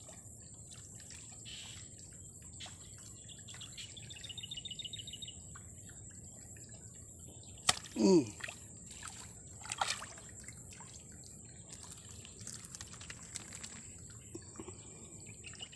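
A small fish splashing as it is hooked and pulled up out of shallow ditch water on a fishing line, about halfway through, with a brief falling-pitched sound at that moment. A bird trills shortly before, over a steady high whine.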